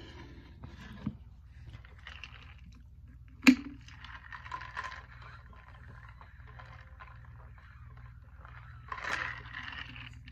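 Handling and drinking noises: a sharp click about three and a half seconds in, then soft sounds of drinking from a tumbler, over a faint steady hum.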